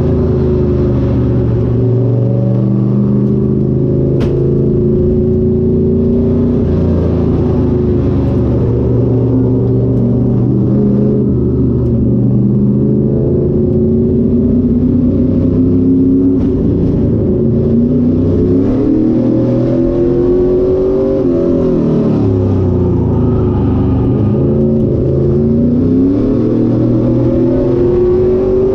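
Late model stock car's V8 engine heard from inside the cockpit, running hard at racing speed. Its pitch repeatedly climbs as it revs up and drops back as the throttle comes off.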